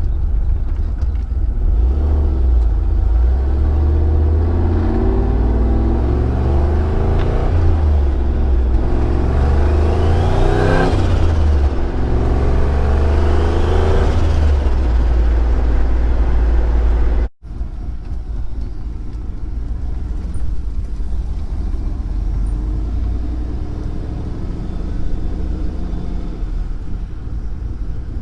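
Turbocharged Pontiac GTO V8 car running with a deep, loud rumble, its pitch rising and falling about ten to fourteen seconds in. It cuts off abruptly around seventeen seconds in, then a quieter engine rumble carries on.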